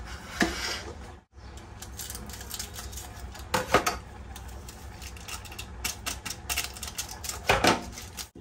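Kitchen scissors snipping open a small plastic sachet, with quick light clicks and crinkling of the packet. Two louder handling noises come about midway and near the end.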